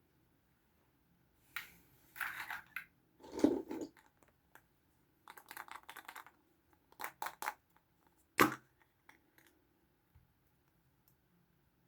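Small plastic toys and their packaging handled up close: irregular bursts of crinkly rustling and sharp plastic clicks, the loudest about three and a half and eight and a half seconds in.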